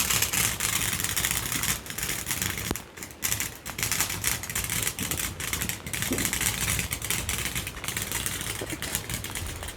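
Firework fizzing with dense rapid crackling, starting suddenly.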